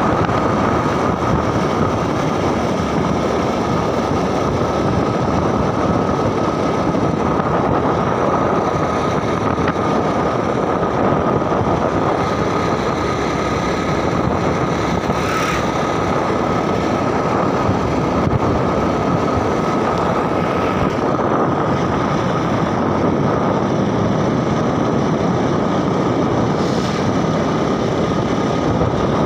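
Steady running noise of a moving vehicle on a paved road: engine and road noise with wind on the microphone, and a constant high whine. A single short click about halfway through.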